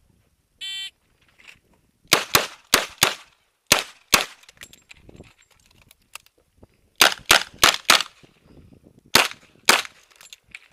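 A shot-timer start beep, then revolver shots fired fast: a string of about six, a pause of nearly three seconds as the cylinder is reloaded, then about six more.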